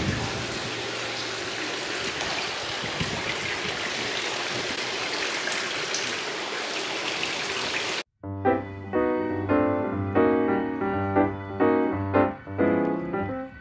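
A stone courtyard fountain's water splashing steadily for about eight seconds. It then cuts off suddenly, and piano music plays.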